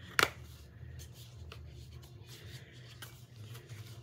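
Plastic movie cases being handled: one sharp click just after the start, then light rubbing and shuffling, over a low steady hum.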